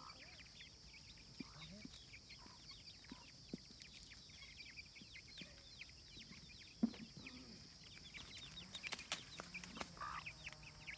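A hen and her chicks: many short, high chick peeps keep coming with a few lower clucks, over a steady high hiss. There is one sharp knock a little before the middle.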